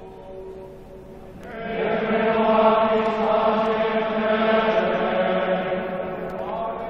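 Choir singing a slow liturgical chant in held notes, growing much louder about a second and a half in and fading toward the end.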